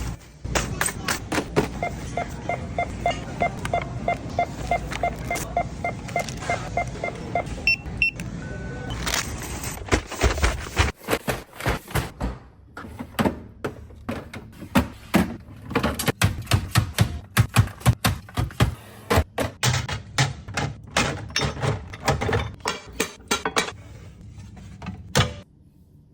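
Groceries and packaging being handled and set down: a dense run of short taps, knocks and rustles, sparser and sharper in the second half, with music underneath.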